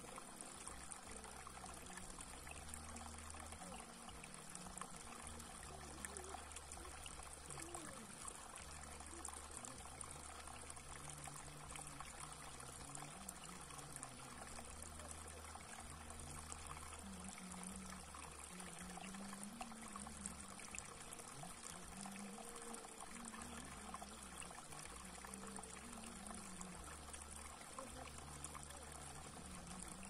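Shallow water trickling steadily over a flat rock ledge and spilling into a pool; a faint, even running and pouring sound.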